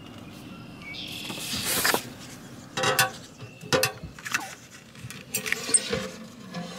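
A paper site tag being pushed into a metal checkout drop box on a post, giving a few short knocks and clinks. A brief rush of noise swells and fades about a second in.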